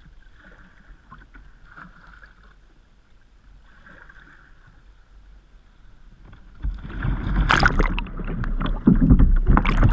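Water splashing and churning around a sea kayak during a roll attempt: faint water sounds at first, then about two-thirds of the way in a sudden loud rush with several big splashes.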